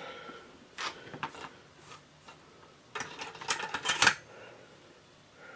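Small metal tools and wires being handled on a workbench during soldering: a few sharp clicks about a second in, then a quick clatter of clicks and taps near the fourth second.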